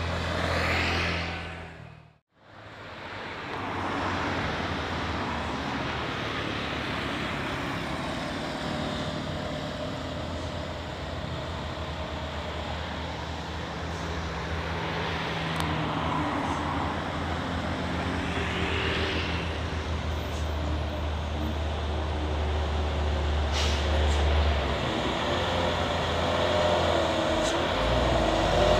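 A motorcycle passes close, then after a short dropout comes a steady low drone of engines on a steep uphill bend. It grows louder near the end as small trucks climb the bend toward the microphone.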